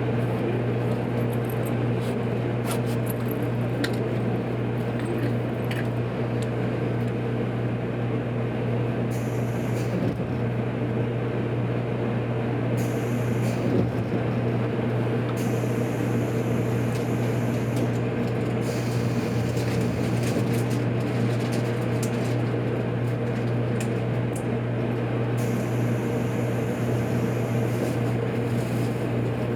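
Steady electrical hum and air-conditioning drone of a JR Kyushu 783 series limited-express train standing at the platform, not yet moving. A few faint ticks come in the first several seconds.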